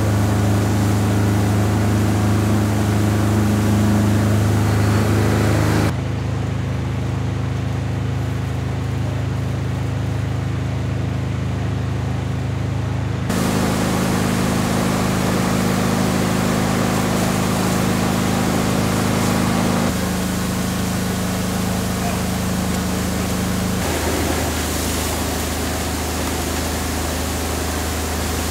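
Fire engine engines and pumps running with a steady low hum over a hiss of water spraying from hoses; the hum changes pitch abruptly several times.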